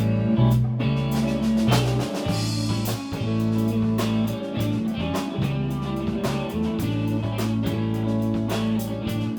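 A band playing an instrumental passage: electric guitar chords over bass notes that change every second or so, with a drum kit keeping a steady beat.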